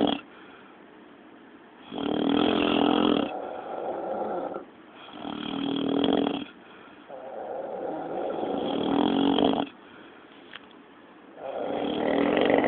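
Loud snoring: a series of snores, each one to two seconds long, with short pauses between breaths.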